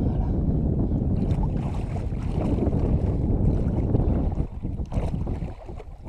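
Wind rumbling on the microphone over water sloshing around a large wels catfish being released in the shallows; the rumble eases about four and a half seconds in, leaving light splashing.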